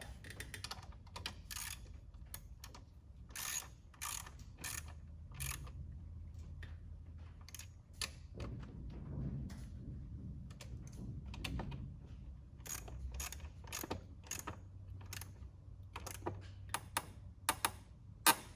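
Socket ratchet clicking in short irregular runs as 8mm bolts on a small motorcycle brake master cylinder are snugged up.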